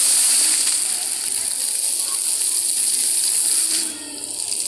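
Water jets of a ground-level dancing fountain spraying and splashing onto a wet tiled floor, a steady hiss that dips briefly about four seconds in.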